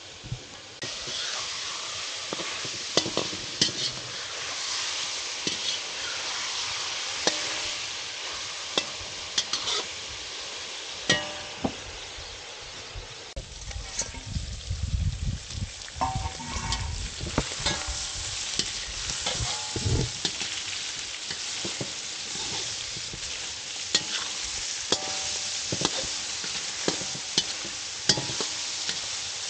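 Food sizzling in a pan over a fire, with a utensil stirring and scraping against the pan in frequent clicks and scrapes. The sizzling starts about a second in.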